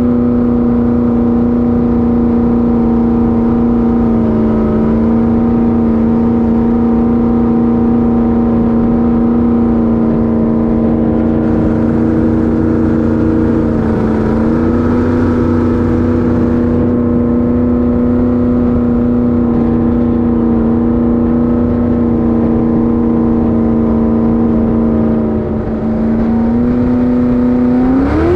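Jet boat's GM LS V8 engine running steadily at speed, its pitch sagging slightly twice and then rising sharply at the very end as it revs up.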